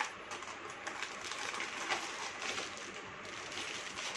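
Soft clicks and rustling from handling a boxed jewellery set and its plastic box.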